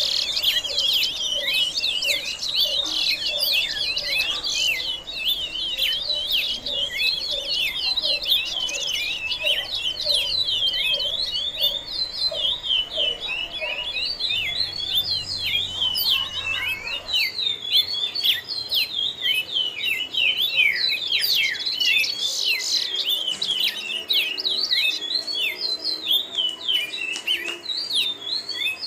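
Birds chirping continuously, many quick high notes overlapping in a busy chorus, with a row of lower repeated notes in the first several seconds.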